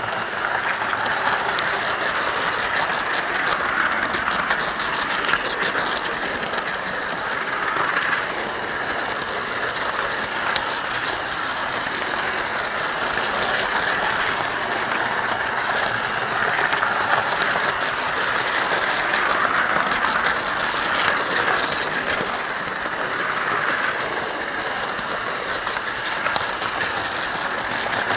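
Model trains running on track, heard from a camera wagon hauled by a model Class 31 diesel: a steady whirring running noise from the motor and wheels, with faint clicking from the wheels over the rail.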